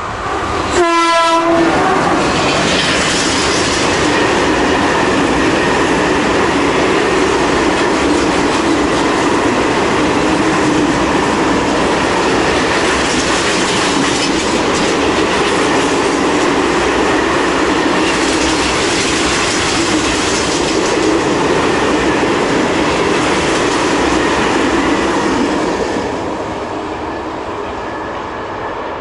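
Freight train of tank wagons, hauled by two electric locomotives, passing close by. A short horn blast sounds about a second in, then the wagons rumble and clatter past steadily, and the sound drops off near the end as the last wagon goes by.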